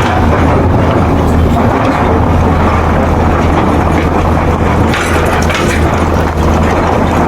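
Excavator's diesel engine running steadily under load, a loud, even drone with a strong low hum.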